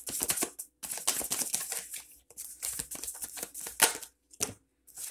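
A deck of tarot cards being shuffled by hand: quick runs of card edges clicking against each other in spurts with short pauses, and a couple of sharper snaps near the end.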